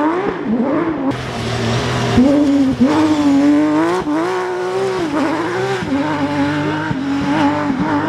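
Porsche 911 GT3 RS RGT rally car's flat-six engine revving hard as it passes, its pitch climbing and dropping again and again through gear changes and lifts off the throttle.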